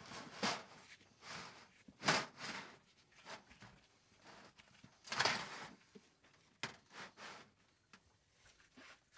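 Plastic oil drain pan being slid and shuffled across the ground into position: a series of short scraping sounds, the loudest about two and five seconds in.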